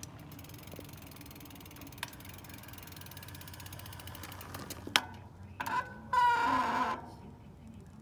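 Mountain bike's rear freehub ratcheting as the bike coasts: a fast, even ticking that stops about five seconds in. A sharp click follows, then a louder pitched sound lasting about a second.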